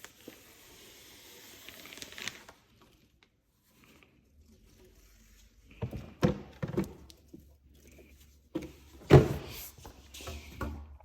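Handling noise from the opened tint film package: a soft rustle for about the first two seconds, then a few knocks and one heavier thunk about nine seconds in.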